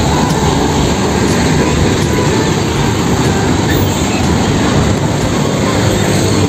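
Steady, loud rumble of a heavy vehicle running.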